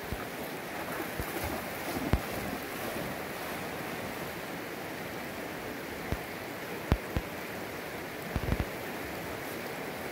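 River water flowing over rocks in a steady wash, with a few short low thumps scattered through it.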